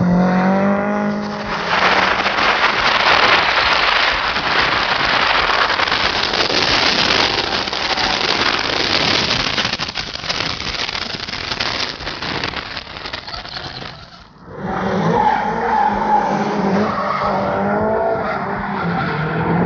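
Drift car engine revving up and down with tyres skidding. In the middle comes a long stretch of steady loud rushing noise as heard from a camera on the car. About fourteen seconds in it cuts out suddenly, and engine revving with its pitch rising and falling comes back.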